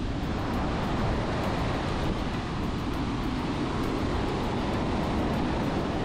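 Surf washing onto a sandy beach with wind on the microphone: a steady rushing noise with a low, fluttering rumble.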